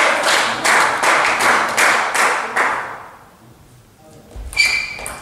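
Spectators clapping in a steady rhythm of about three claps a second, dying away about three seconds in. After a short pause, near the end, a serve starts with sharp clicks and a short ping from a celluloid table tennis ball striking the racket and table.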